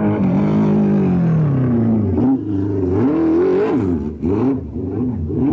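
Racing sidecar motocross engines revving hard, the pitch falling at first and then rising and falling several times as the throttle opens and closes.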